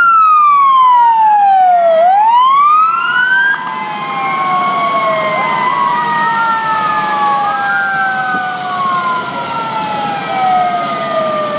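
Fire engine sirens wailing as fire trucks pass close by. One siren glides down in pitch and sweeps back up about two seconds in. Then several sirens at different pitches overlap in slow falling wails, a little quieter after about three and a half seconds.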